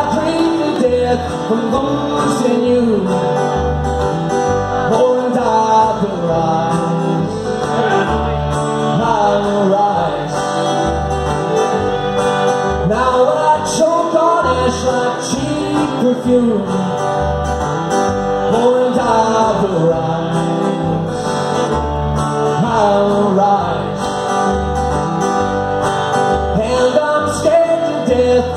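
Live acoustic folk-country music: a fiddle and a strummed acoustic guitar playing together with a man singing, over a steady low beat.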